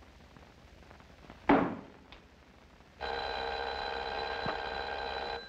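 A single loud thump, then a telephone bell rings steadily for about two and a half seconds and cuts off.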